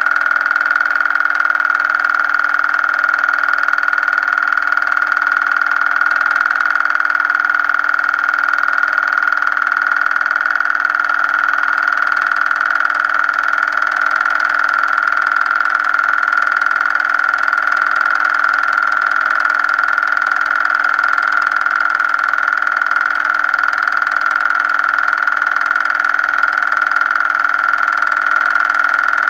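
Steady mechanical whir of a running motor: a constant high-pitched hum that never changes in level or pitch.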